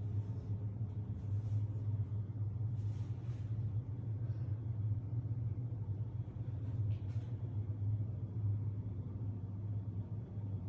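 A steady low hum with no change in pitch, with a few faint brief rustles over it.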